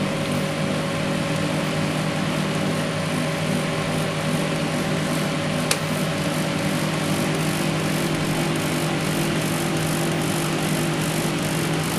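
Argos Value YDK1-10D dehumidifier running: a steady hum from its compressor and fan, with one brief click about six seconds in.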